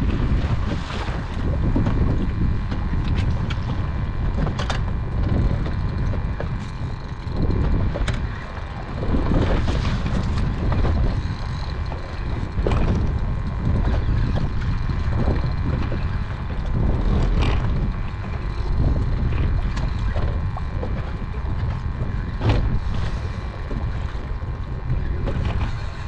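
Wind buffeting the microphone on a boat in rough water, with water and hull noise, a faint steady hum and scattered knocks.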